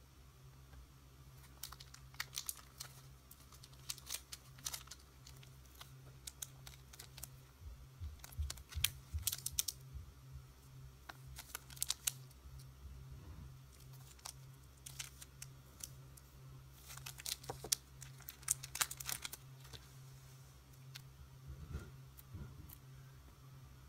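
Clear plastic packaging crinkling and acrylic goods clicking as bagged acrylic stands are handled and stacked, in scattered bursts of rustles and light taps, over a steady low hum.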